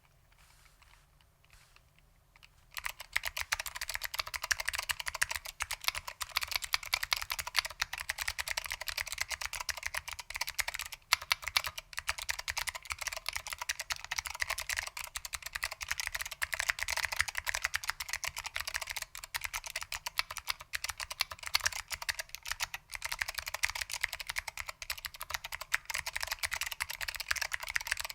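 Fast, continuous typing on a mechanical keyboard with SKCM Blue Alps switches, giving rapid clicky keystrokes on PBT keycaps. The typing starts about three seconds in, after a short quiet spell.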